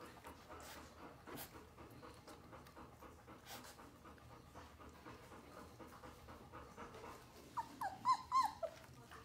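Young puppies, with a faint run of small clicks and smacking sounds, then near the end a quick burst of about five short, high-pitched puppy squeaks and whimpers, the loudest part.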